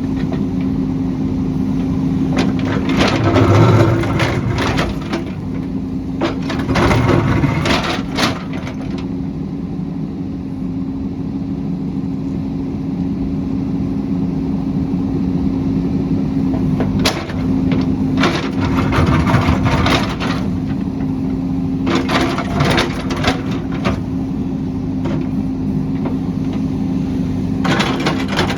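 Heavy construction machine's engine running steadily, with several clusters of sharp cracks and knocks as it works.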